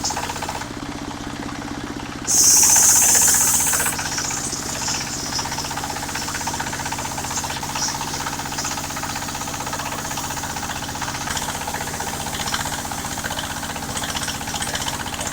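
Engine-driven mobile circular sawmill running steadily with a rapid pulsing beat. About two seconds in, a loud high hiss starts abruptly and cuts off a second and a half later.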